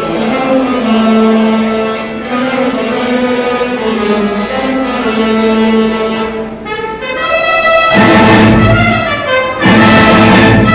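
Orchestra and band playing an instrumental overture with brass to the fore: held chords, then about seven seconds in a rising run leads into loud full-ensemble chords with heavy bass, cut off briefly and struck again near the end.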